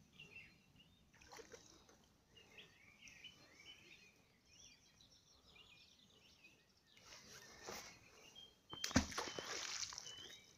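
Songbirds chirping, with short repeated chirps. Near the end comes a sudden loud burst of noise lasting about a second.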